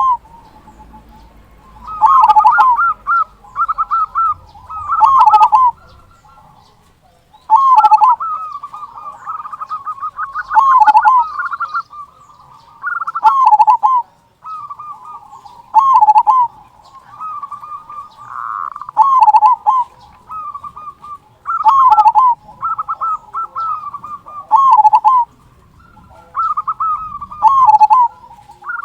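Zebra dove (perkutut) cooing in repeated phrases every two to three seconds, each a run of quick notes followed by loud swooping 'kung' notes.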